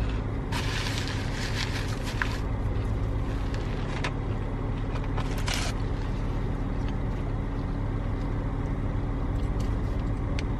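Steady hum of a car idling, heard from inside the cabin. Brief rustling about half a second in, lasting about two seconds, and again around five seconds.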